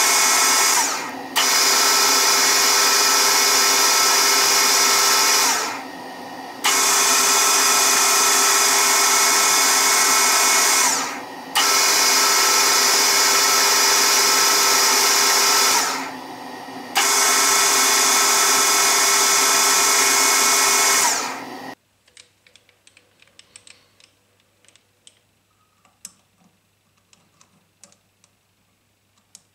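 Metal lathe running under power while screw-cutting a thread on a small metal shaft, a loud steady machine sound with several steady whining tones. It drops briefly four times, about every five seconds, and stops about 21 seconds in, leaving faint clicks and taps of metal being handled.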